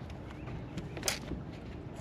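Steady low rumble of wind and water noise on an open boat, with one sharp click about a second in.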